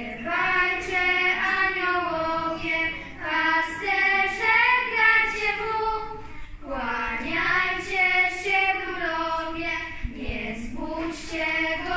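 A group of children singing a Christmas carol together, in phrases with short pauses between them.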